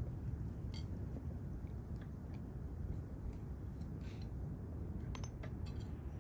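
Scattered light clicks and small clatters of objects being handled, with a cluster about five seconds in, over a steady low rumble.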